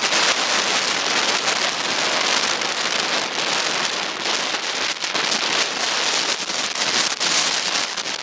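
Strong storm wind buffeting the microphone: a loud, steady, crackling rush that starts abruptly.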